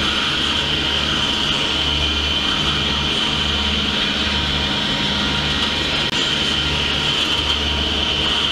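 Freight train of refrigerated boxcars rolling steadily past: continuous rail and wheel noise with a steady high hiss and a low throb that comes and goes about once a second.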